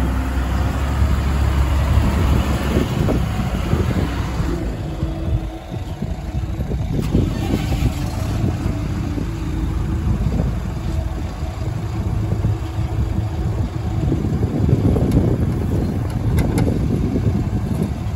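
Diesel engines of a JCB backhoe loader and tipper truck running steadily as the backhoe works, loading mud. There is a brief dip in level about five seconds in.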